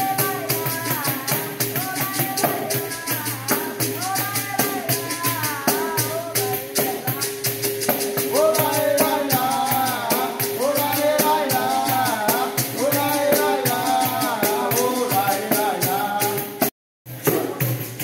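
Capoeira music: a berimbau sounding a steady repeated note with its caxixi rattle, and a pandeiro keeping a fast jingling beat, with a voice singing over them. The sound cuts out briefly near the end, then the music resumes.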